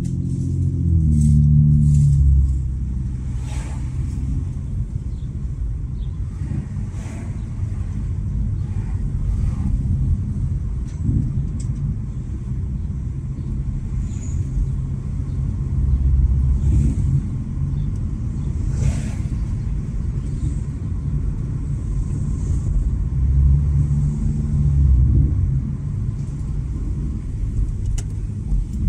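Exhaust of a muffler-deleted 3.5-litre V6 Honda Accord rumbling deeply while driving, swelling louder a few times as the car accelerates.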